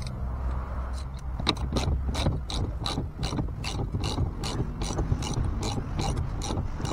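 Socket ratchet wrench clicking steadily, about four clicks a second, as it runs the retaining nut down onto the boat steering wheel's hub; the clicking starts about a second in.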